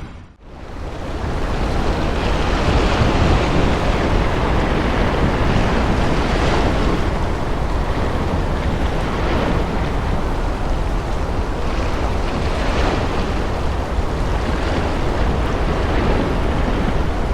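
Storm surf breaking on the shore with strong wind buffeting the microphone: a continuous rush of water, surging as a wave breaks every few seconds, over a constant low wind rumble. It fades in just after the start.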